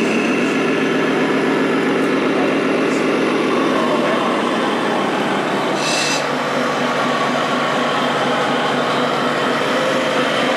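Scale radio-controlled truck's sound module playing a diesel truck engine running steadily, the engine note dropping to a lower pitch about four seconds in. A short, high sound cuts in about six seconds in.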